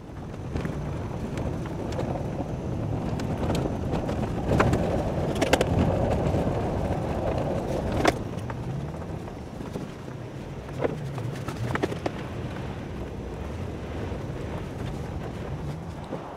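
A vehicle driving along a rough dirt farm track, heard from inside the cab: steady engine and tyre rumble, with several sharp knocks and rattles as it goes over bumps.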